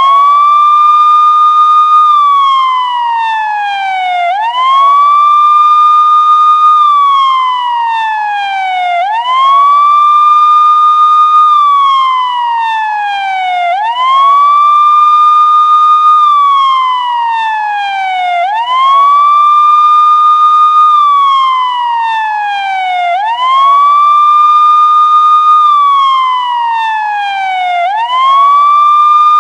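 Police siren sounding a slow wail: each cycle rises quickly, holds its top note for about a second, then slides down over two to three seconds. It repeats about every four to five seconds, some six times over.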